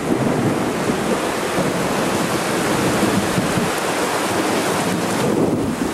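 Heavy wind-driven thunderstorm rain with gusts of wind buffeting the microphone, a steady dense noise without a distinct thunderclap.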